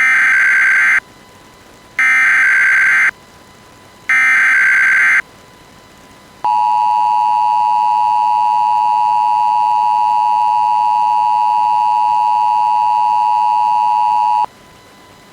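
Emergency Alert System header: three loud one-second bursts of SAME data tones, two seconds apart, then the EAS two-tone attention signal held steady for about eight seconds.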